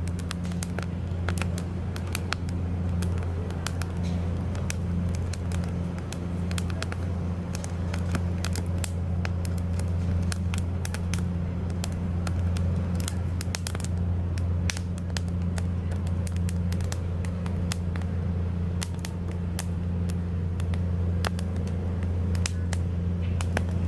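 Wood campfire crackling, with many sharp, irregular pops and snaps, over a steady low hum.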